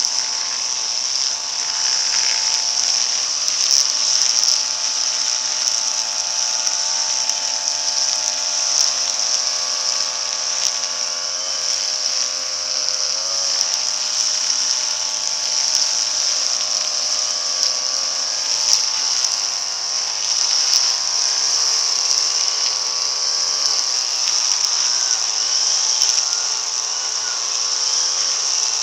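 Brush cutter engine running at a steady high speed as it cuts grass, a loud buzzing whine whose pitch wavers a little now and then.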